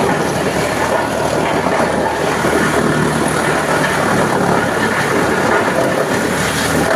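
Small wood-cutting machine running steadily, a constant mechanical noise with no change in pitch or level.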